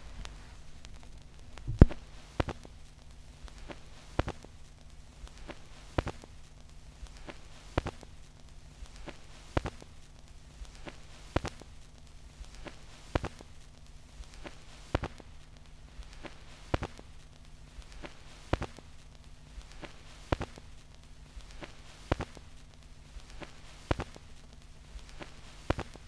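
Stylus tracking the silent groove of a 7-inch vinyl record at 33⅓ rpm: soft surface noise and crackle over a steady low hum, with a sharp click about every 1.8 seconds, once per turn of the record.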